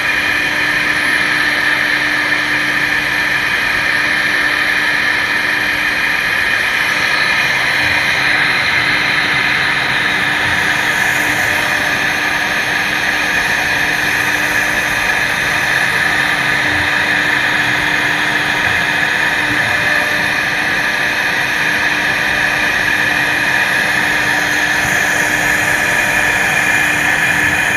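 CNC router spindle running steadily while cutting, a constant machine tone under loud cutting noise.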